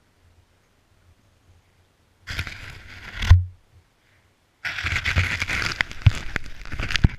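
Camera being handled by a gloved hand: rustling and scraping against the microphone starting about two seconds in, with a sharp thump, then a longer stretch of rubbing and clicks from about halfway through.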